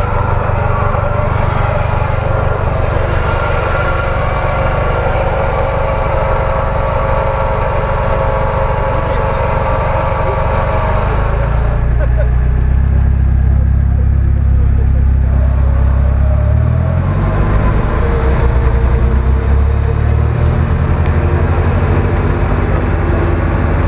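Toyota 4Runner's engine running hard under load as the truck crawls through deep mud, the revs rising and falling with the throttle. About twelve seconds in, the sound changes suddenly to a heavier, deeper engine note.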